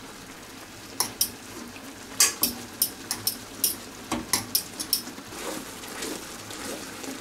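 A metal utensil clinking and scraping against an enamel pot about a dozen times while butter is stirred into cooked buckwheat. In the last couple of seconds come softer stirring sounds from morels in cream sauce being stirred in a cast iron skillet.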